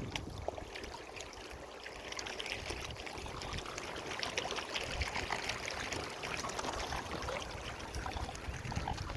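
Water trickling and splashing lightly, a steady crackle of small splashes, with low gusts of wind on the microphone.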